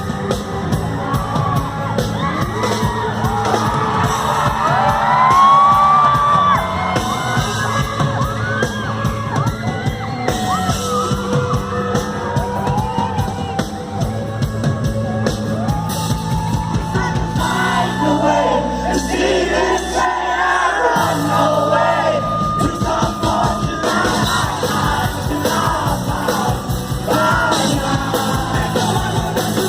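Live rock band playing a song on stage, with the audience screaming, whooping and singing along loudly over the music.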